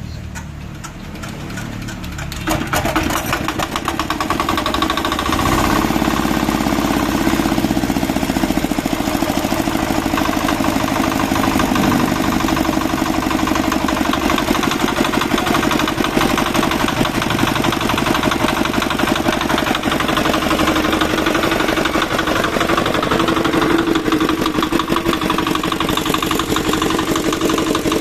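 R175 single-cylinder diesel engine, 7 hp, starting up: a lower rumble for the first two and a half seconds, then it catches and runs steadily with rapid, even firing beats.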